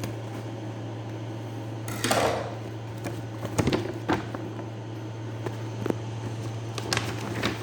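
Packaging being handled on a table: a brushing, sliding swish about two seconds in, then a few light knocks and taps, over a steady low room hum.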